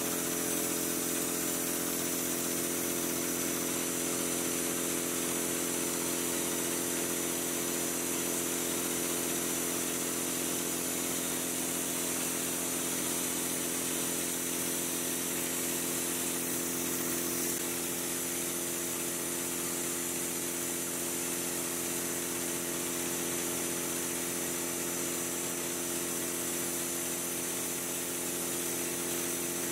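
Drywall texture spraying rig running: the steady drone of an air compressor with the hiss of compressed air through a hopper gun spraying orange peel texture mud. The sound holds even and unbroken throughout.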